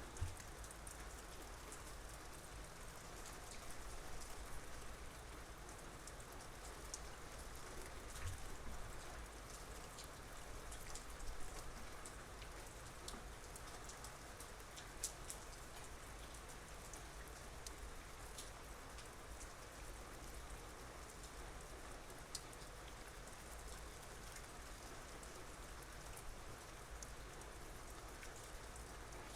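Soft, steady rain falling, with scattered individual drops ticking on surfaces.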